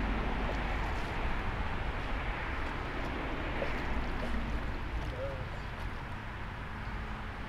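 Steady rush of passing highway traffic, with a low rumble of wind on the microphone underneath.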